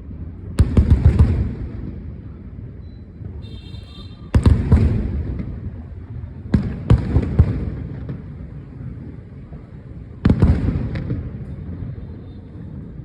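Fireworks going off: sharp bangs in four bursts a few seconds apart, the third a quick double, each trailing off in a rumble over a second or two.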